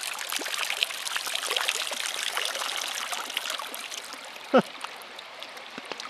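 Water trickling and splashing out of a homemade two-liter pop-bottle minnow trap as it is tipped to drain over a creek, tapering off in the second half. A brief, sharp squeak slides downward in pitch about four and a half seconds in.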